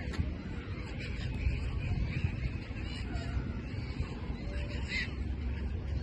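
Gulls calling: scattered short calls, the clearest about five seconds in, over a steady low background rumble.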